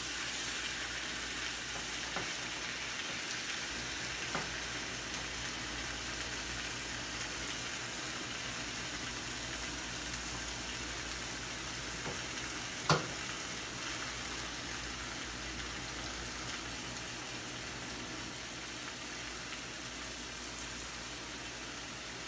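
Ham slices and scrambled egg sizzling steadily in a frying pan. A single sharp click about thirteen seconds in, and a fainter one earlier.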